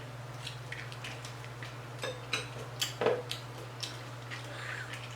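A person eating a taco: scattered short clicks, crackles and mouth sounds of chewing and handling the food, over a steady low hum.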